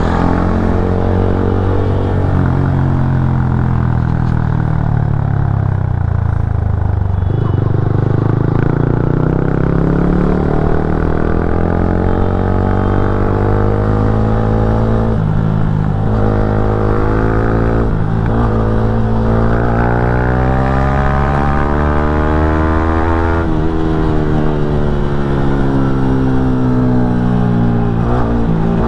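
Yamaha MT-15's 155 cc single-cylinder engine heard while riding, its pitch climbing and falling as the bike speeds up and eases off, with sudden drops in pitch at gear changes, over a steady low wind rumble.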